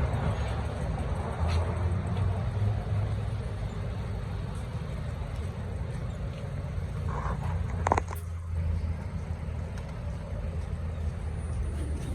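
City street traffic: a steady low rumble of passing vehicles, with a short sharp clack just before eight seconds in.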